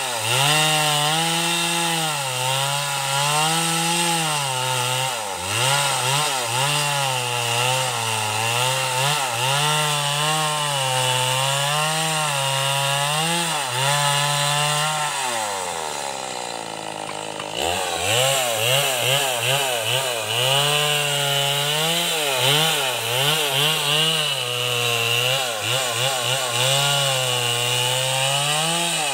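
Two-stroke chainsaw cutting through timber planks at high revs, its pitch wavering as the chain bites into the wood. About halfway through the throttle is let off and the engine drops toward idle for a couple of seconds, then revs up again and keeps cutting.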